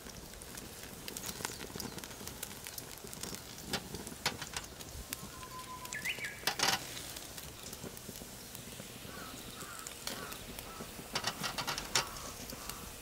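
Beef slices sizzling and crackling on a wire grill mesh over charcoal, with sharp clicks from metal tongs turning the meat on the mesh; a bird chirps faintly, once about six seconds in and a few times near the end.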